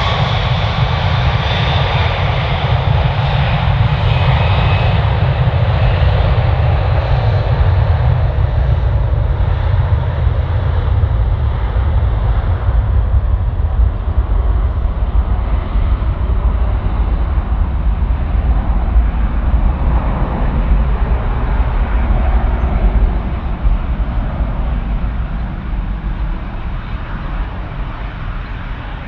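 Jet airliner engines running loud and close, a deep rumble with a faint whine early on, fading away over the last several seconds as the aircraft moves off.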